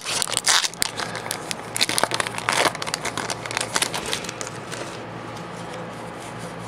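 Foil booster pack wrapper crinkling and crackling as it is torn open. The crackles are dense for the first three seconds or so and die down after about four.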